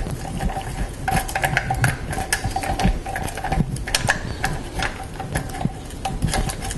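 Irregular light metallic clicks and clinks of a timing-chain sprocket support bracket, its bolts and the timing chain being handled against a Triumph Stag V8 engine while the bracket is lined up and its bolts started by hand.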